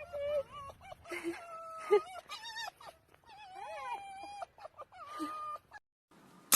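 An animal calling in a run of short calls that slide up and down in pitch, cutting off suddenly a little under six seconds in, followed by a sharp click.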